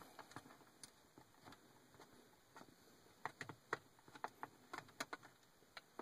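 Faint, irregular clicks and light taps of hard plastic being handled: a C6 Corvette's cup holder assembly and console trim, with a small cluster of clicks past the middle.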